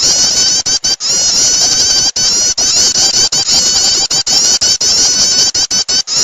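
Prinia (prenjak) lure call: a loud, dense run of rapid, high chirping notes repeated many times a second, broken by brief gaps.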